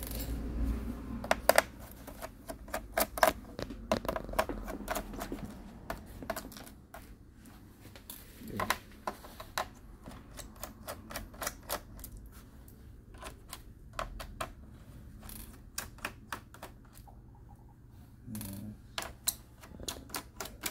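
Small screwdriver taking out the bottom-case screws of an HP 255 G3 laptop: a run of irregular sharp clicks and taps of the tool and screws on the plastic case.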